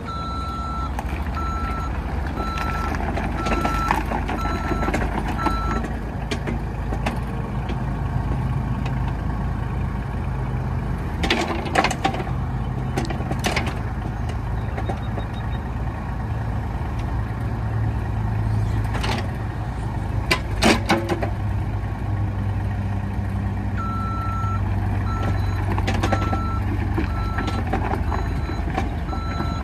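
2012 Caterpillar mini excavator's diesel engine running steadily while the machine is worked, with its warning alarm beeping at an even pace for the first six seconds or so and again over the last six. A few sharp metal knocks come in the middle.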